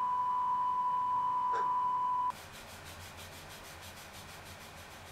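Steady 1 kHz test tone of a TV color-bars signal, cutting off abruptly about two seconds in. Then a much quieter, steady rubbing noise with a faint regular pulse.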